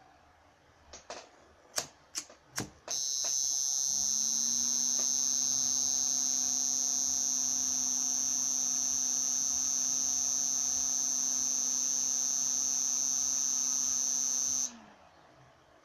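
An Arduino temperature alarm's piezo buzzer sounds a steady high-pitched tone for about twelve seconds, then cuts off suddenly, signalling that the set temperature has been crossed. A low hum runs underneath while it sounds, and a few sharp clicks come just before it starts.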